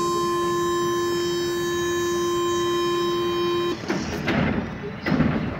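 Metro train's door-closing warning buzzer sounding one long, steady tone that cuts off suddenly about three and a half seconds in, followed by a couple of louder knocks and rattles.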